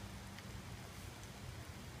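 Quiet outdoor background: a faint even hiss with a steady low hum underneath, and no distinct event.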